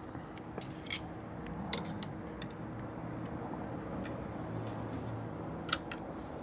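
A few separate sharp metallic clicks and ticks of a small tool and fingers working the throttle screw and linkage on a Linkert carburetor, over a steady low hum.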